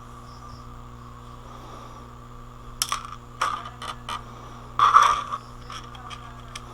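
Small hard parts being handled: a string of clicks and knocks about three seconds in, then a louder scraping clatter near five seconds, over a steady electrical hum.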